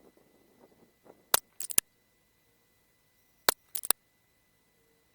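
Bullpup PCP air rifle (AirMaks Katran) fired twice, about two seconds apart, each sharp shot followed straight away by a quick run of clicks from the action being cycled.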